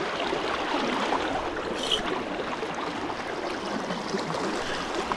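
Fast river current rushing and gurgling steadily around a wading angler.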